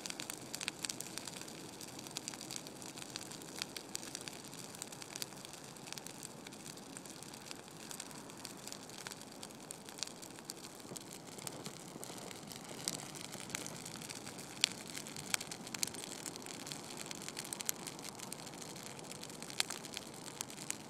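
A dry Christmas tree's branches and needles burning in an open fire: a steady hiss of flame with frequent sharp crackles and pops.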